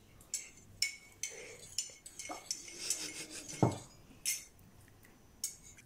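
A fork clinking and scraping against a ceramic plate in several short, sharp taps, with a heavier knock about three and a half seconds in as a mug is set down on the table.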